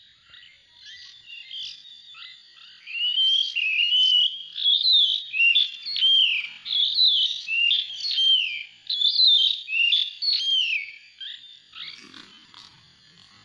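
Sooty-headed bulbuls calling: a long, loud run of clear, downward-slurred notes, about one and a half a second, quieter at first and tailing off near the end. A faint rustle near the end.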